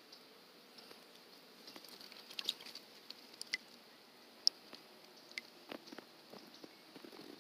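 Faint light patter and small splashes of water as a peacock bass is let go from a hand in shallow water, with scattered soft ticks throughout and a couple of sharper ticks around the middle.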